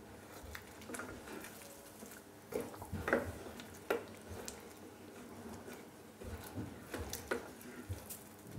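Wooden spoon stirring thick tomato sauce in a stainless steel pot, with irregular soft pops and clicks as the sauce simmers and bubbles, a few louder ones about three to four seconds in.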